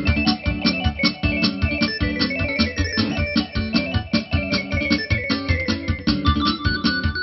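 Electronic arranger keyboard played live through a PA speaker: a quick melody over a bass line and a fast, steady drum beat.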